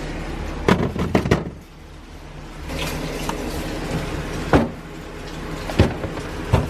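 A handful of sharp knocks and clicks of cookware and utensils being handled, three in quick succession and then single ones spaced a second or so apart, over a steady low hum.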